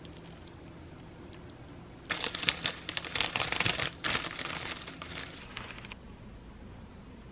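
Crinkling of a plastic bag of dried seaweed flakes as it is handled and shaken out over a bowl of rice. It starts about two seconds in, is loudest for the first two seconds, then eases off and stops about six seconds in.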